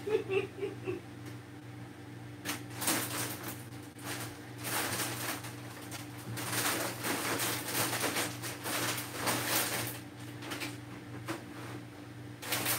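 Rustling, knocks and door sounds of groceries being put away, over a steady low hum. The handling noise comes in stretches from a few seconds in until about ten seconds in, with a few sharp clicks.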